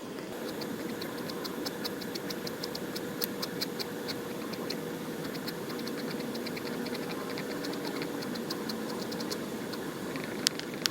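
Inking pen nib ticking on paper in quick short strokes or dots, about five light clicks a second, with a few louder taps near the end.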